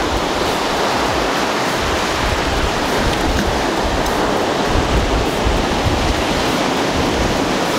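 Surf washing up the beach and over the shallows: a steady rush of small waves breaking.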